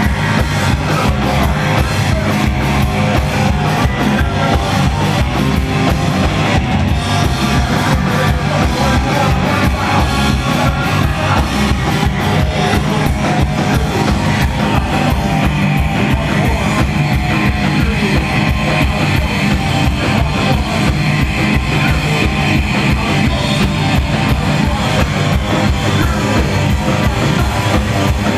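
Loud live rock band playing: electric guitar and drum kit, with a fast, steady pulse of kick drum.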